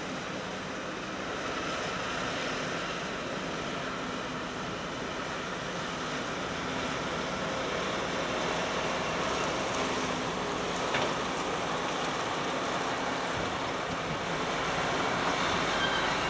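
Heavy low-loader truck and escort vehicles driving slowly past on a wet road: a steady rumble of engines and tyre hiss that grows gradually louder.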